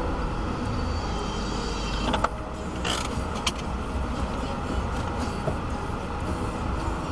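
Car running slowly through snow, heard from inside the cabin: a steady low rumble of engine and tyres as it slows to a stop. A few sharp clicks and knocks come between about two and five seconds in.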